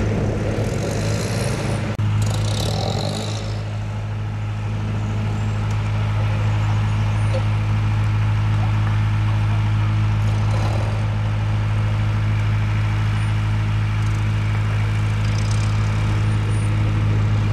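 Engine of a ground vehicle running steadily with a low, even hum, with a short hiss of air about a second in.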